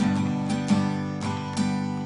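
Acoustic guitar strummed in steady chords, about two strokes a second, with no singing.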